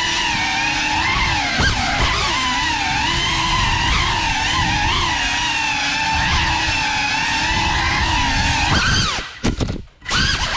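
Geprc Cinelog35 cinewhoop's brushless motors and ducted propellers whining in flight, the pitch wavering up and down with the throttle. Near the end the throttle is chopped: the whine drops away almost to nothing, then climbs back.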